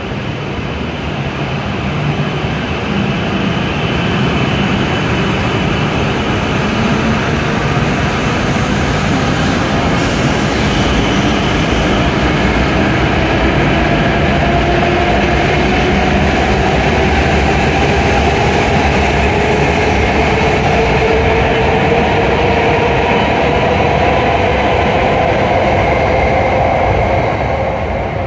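E7 series Shinkansen pulling out of the station: steady rumble of the cars rolling past, with a rising whine from the traction motors as the train accelerates. The sound drops away near the end as the last car clears.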